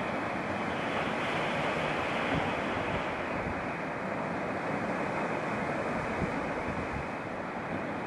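Sea surf breaking and washing over shoreline rocks, a steady rushing of foaming water.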